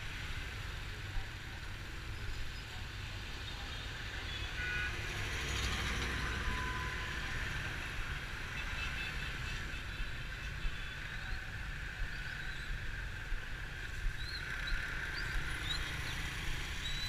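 Traffic noise heard while riding through city streets: a steady low engine rumble with road and wind noise, a little louder about five seconds in, and a few short high chirps near the end.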